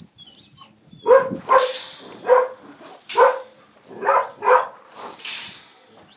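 Border collie barking repeatedly, about seven barks beginning about a second in, spaced half a second to a second apart.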